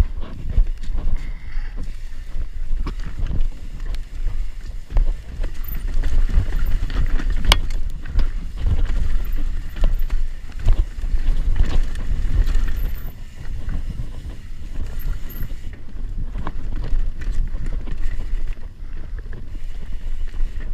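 Mountain bike riding down a rocky dirt trail: wind rumbling on the microphone, tyres rolling over dirt and rock, and many sharp knocks and rattles as the bike hits bumps.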